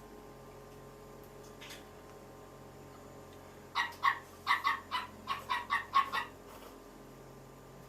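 An animal calling: a quick run of about ten short pitched calls over some two and a half seconds, starting about four seconds in.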